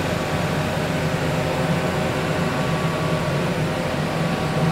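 Steady low machinery hum with faint steady tones above it, from powered-up CNC machine-tool equipment.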